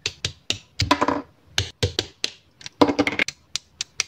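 Hobby side-cutter nippers snipping plastic model-kit parts off the sprue, a rapid series of sharp plastic clicks, with short bursts of plastic parts rattling in the hand about one second and three seconds in.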